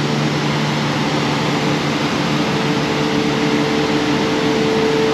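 Steady hiss and hum of ventilation fans, with a few steady humming tones under it. The lowest hum fades about two seconds in while a higher one grows stronger.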